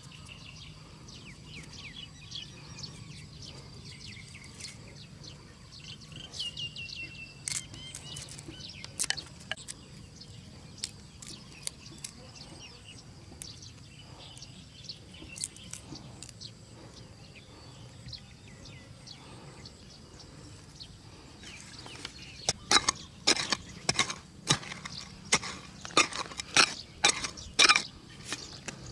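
Outdoor background with scattered bird chirps, then in the last several seconds a quick run of sharp knocks or taps, the loudest sounds here.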